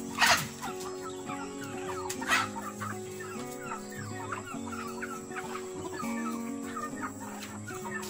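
Free-range chickens clucking, with two loud short sharp sounds about a third of a second in and again just after two seconds in. Soft background music with slow stepping notes plays underneath.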